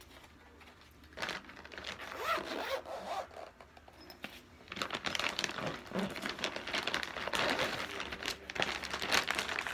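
Zipper on a black fabric sketching-kit case being drawn along, with the case rustling as it is handled. The rasping starts after about a second, comes in short pulls at first and runs thicker from about halfway.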